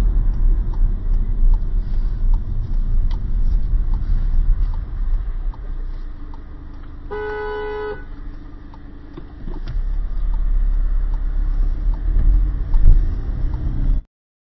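Car cabin road and engine rumble with a faint steady ticking about twice a second. About seven seconds in, a car horn gives one toot lasting about a second, a warning at a car pulling out in front.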